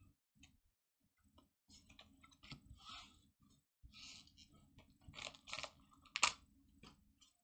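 Pokémon trading cards being handled and sorted: cards sliding and flicking against each other and tapped onto a stack, a scatter of soft scrapes and clicks with the sharpest click about six seconds in.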